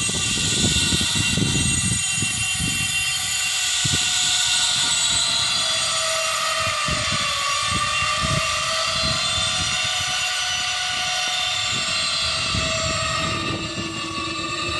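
A small multirotor drone's propellers whining in several steady tones that waver slightly in pitch, with an uneven low rumble underneath.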